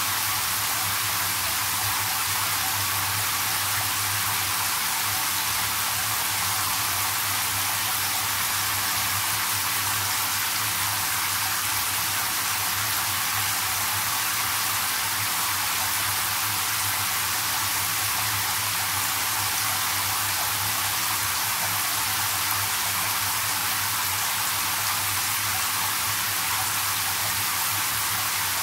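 Shower head spraying water into a partly filled bathtub: a steady, even hiss of falling water splashing onto the bath water, with a faint low hum underneath.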